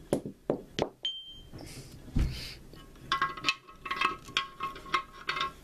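Metal parts handled against a T-90 transmission's case, as the steel reverse idler gear is set in place: a few sharp clinks in the first second, one ringing briefly, a dull thump about two seconds in, then from about three seconds a run of rattling, ringing metallic clinks.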